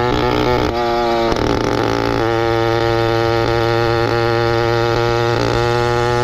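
Motorized bicycle's small single-cylinder engine running at a fairly steady speed, its note wavering briefly about a second in before settling steady again.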